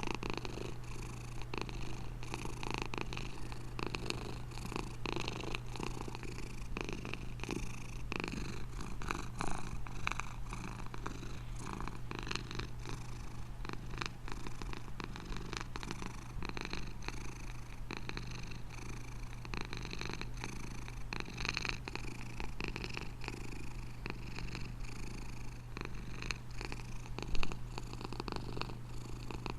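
Domestic cat purring steadily, with a short loud knock near the end.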